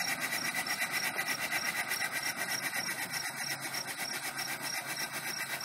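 A mid-1940s ex-navy steam engine running steadily, giving an even, hissing chuff at about four beats a second.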